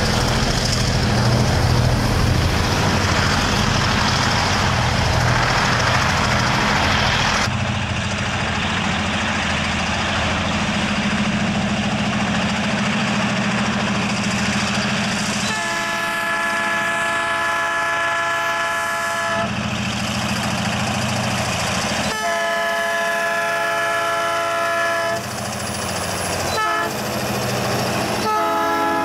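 Road vehicles passing first, a car and a truck with their engines running. Then a Rumo diesel freight train approaches, and its locomotive's multi-note air horn sounds two long blasts, a short toot, and a further blast near the end as the locomotives draw alongside.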